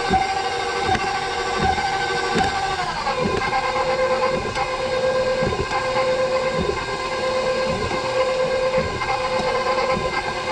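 Electric mixer running, blending egg and water: a steady motor whine that drops in pitch about three seconds in, with regular knocks about once a second.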